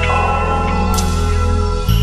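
Background music: sustained chords with a bright strike about a second in and a chord change near the end.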